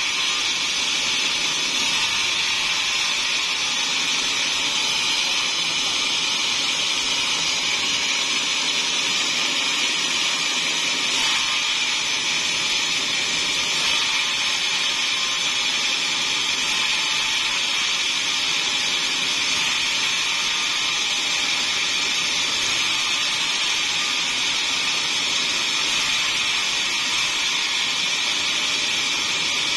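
Large sawmill band saw ripping a teak log lengthwise into a wide board: a steady, high-pitched cutting noise that holds without a break.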